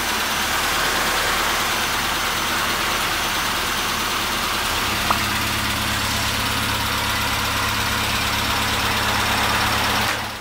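Classic Mini's engine idling steadily. About halfway through, a low hum grows stronger.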